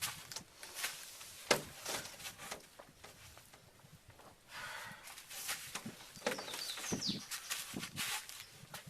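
Irregular footsteps with scattered knocks and scuffs, as of handling a large object. A couple of short high squeaks come about two-thirds of the way through.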